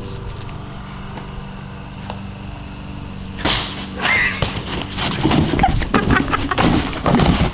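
A steady low hum, then about three and a half seconds in a sudden loud noise followed by short high yelps and jumbled bumping and rustling.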